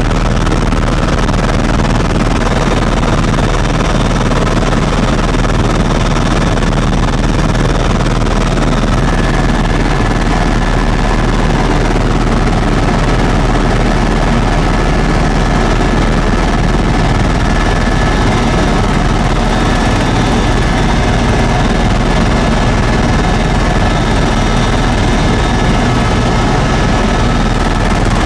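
Steady cabin noise of a Eurocopter EC130 EcoStar helicopter in flight: the turbine and rotor run evenly and heavy in the low end. A thin high whine joins about nine seconds in.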